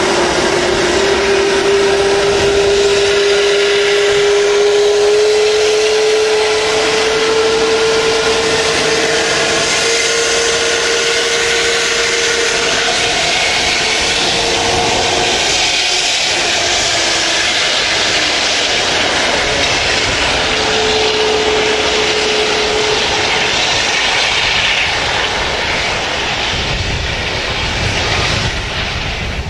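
Jet engines of an Airbus A380 airliner during its landing: a steady rushing noise with a high engine whine that slowly rises in pitch over the first half, a shorter whine returning about two-thirds of the way in, and the noise easing slightly near the end.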